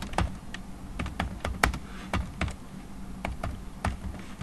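Computer keyboard keys clicking as a sentence is typed: irregular single keystrokes, about three a second, over a faint steady low hum.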